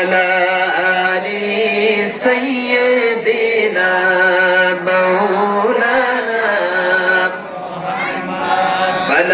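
A man singing an Islamic devotional song (gojol) into a microphone, drawing out long, slowly bending notes with no clear words. The voice softens briefly about three-quarters of the way through.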